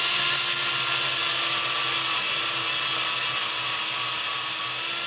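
Angle grinder with an abrasive disc running steadily against the end of an outboard crankshaft, grinding back a Speedi-Sleeve crank repair sleeve to trim it shorter.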